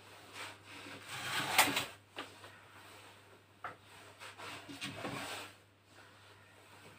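Knocks and scrapes from handling the metal firebox door and kindling wood of a wood-fired sauna stove. The loudest is a scraping clatter about a second and a half in; after it come a few single clicks and a second, shorter spell of scraping.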